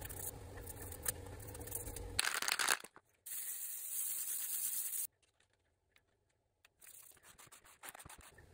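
Hand handling of paper and board in craft work: a steady scratchy rubbing, then a loud rustle about two seconds in. A bright papery hiss follows until about five seconds in, and after a short quiet spell there are light clicks and rustles.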